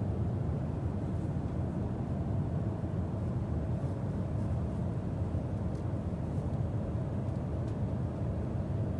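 Steady low rumble of cabin noise inside a Boeing 777-200ER airliner, even throughout.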